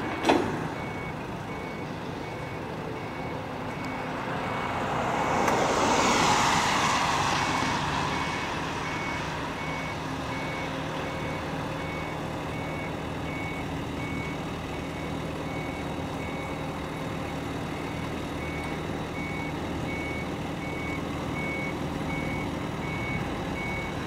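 Heavy-lift site machinery running with a hum while a warning beeper repeats evenly, as portable hydraulic jacks lift a light rail car off a freight flatcar. About five to eight seconds in, a broad swell of noise rises and fades, like a road vehicle going past.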